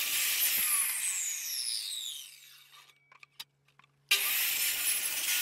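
Electric miter saw running as it chops the tip off a wooden block, then the blade spins down with a falling whine. The saw's motor noise starts again abruptly about four seconds in.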